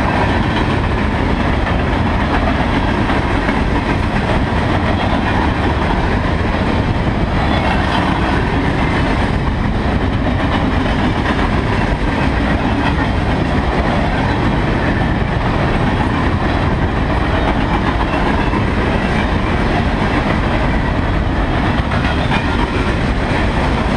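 Freight train's open-top gondola cars rolling past close by: a loud, steady noise of steel wheels running on the rails, with a clickety-clack over the track.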